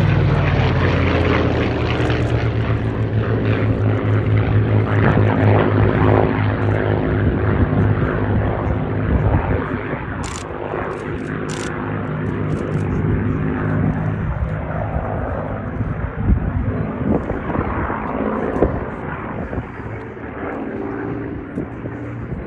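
Second World War fighter's V12 piston engine droning overhead with a steady pitched tone, slowly getting quieter and less distinct in the second half as the aircraft draws away.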